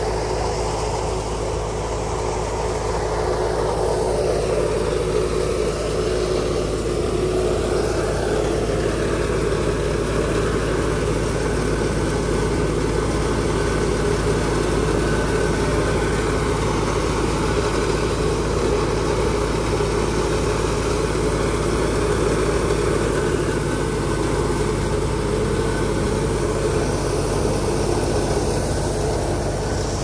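Tractor engine running steadily, driving a wheat thresher; a continuous even machine drone.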